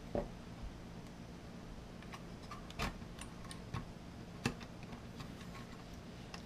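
Irregular light clicks and taps from handling an Intel NUC mini PC's case and its perforated metal drive bracket.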